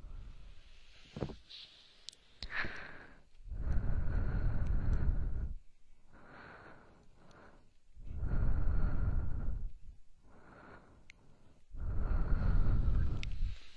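ASMR breathing right at the microphone: three long, heavy breaths about four seconds apart, with softer breaths between them and a few faint mouth clicks.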